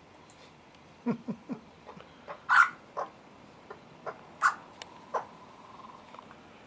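Juvenile Australian magpies calling in short, harsh begging squawks, the loudest about two and a half seconds in and another about two seconds later, among softer short calls.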